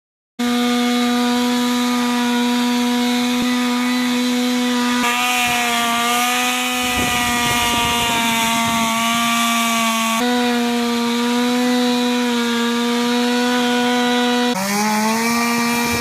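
Chainsaw running at high, steady revs as it cuts into the trunk of a fallen tree, its pitch sagging and bending under load near the end.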